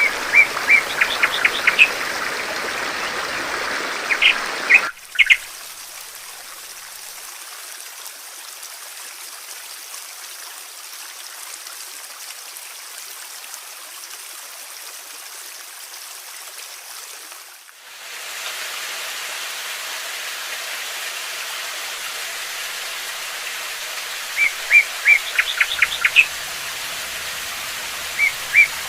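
A songbird giving quick runs of high chirps, several times, over the steady rush of running water. About five seconds in the sound cuts to a quieter water noise with no birds, and at about eighteen seconds it cuts back to louder water with the chirping returning.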